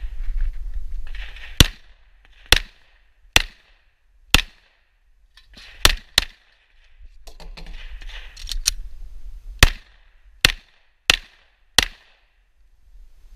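Semi-automatic pistol firing about a dozen shots at an uneven pace, mostly single shots with a second or so between them and a couple of quick pairs, with a low rumble between some shots.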